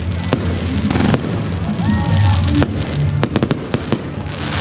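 Fireworks going off overhead: sharp bangs and crackles every second or so, with a quick cluster of cracks about three seconds in, over music with a steady bass line.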